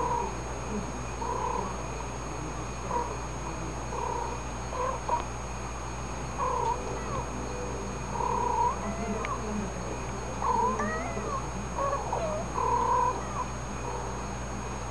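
Two cats trading short murmured meows and chirps, played back through laptop speakers: a call every second or so, some gliding up and down in pitch, coming thickest in the second half, over a faint steady hum.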